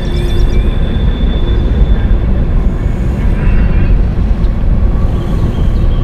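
Steady wind rumbling on the microphone, a loud low buffeting noise.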